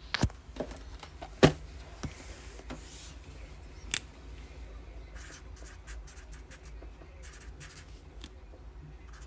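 Handling noises as a trading card box is opened: a few sharp knocks and clicks, the loudest about a second and a half in, then a run of light scratching and rustling strokes.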